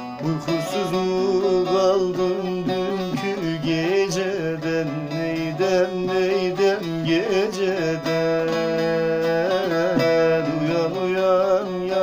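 Bağlama (long-necked Turkish saz) playing a folk melody, with a man's voice singing a wordless, wavering line over it.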